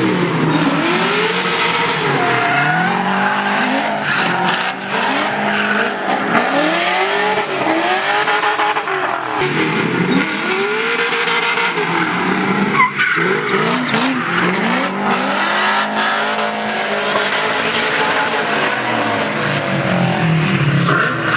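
LS V8-swapped Nissan S13 doing a burnout: the engine revs up and drops back again and again, every couple of seconds, over continuous tyre squeal. A single sharp crack cuts through partway in.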